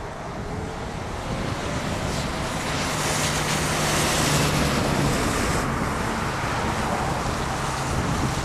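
Steady rushing of wind on the microphone, with the hiss swelling for a few seconds mid-way and dropping off suddenly about six seconds in.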